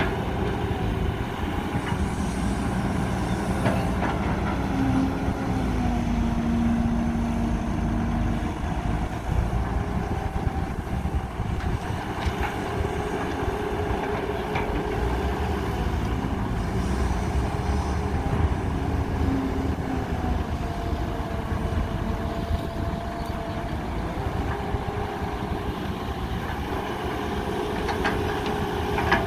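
Caterpillar hydraulic excavator working as it loads a dump truck with soil: its diesel engine runs steadily under load, with a whining tone that rises and falls a few times as the boom, arm and bucket move.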